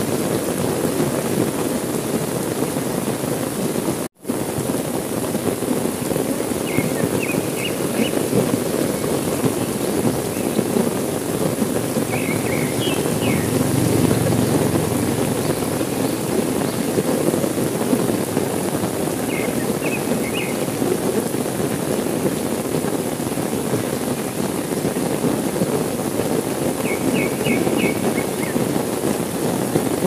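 Heavy rain falling steadily, with the sound cutting out for an instant about four seconds in. A faint call of a few quick high chirps comes four times.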